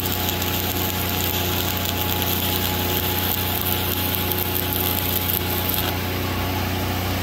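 Stick-welding arc of a 1/8-inch Lincoln Excalibur 7018 rod on rusty, uncleaned steel at about 124 amps: a steady hiss that stops about six seconds in as the bead ends. Under it, the steady hum of a Lincoln 305D engine-driven welding machine.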